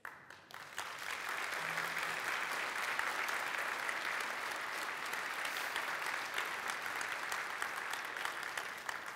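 A large audience applauding. The clapping builds up in the first second, holds steady and dies away near the end.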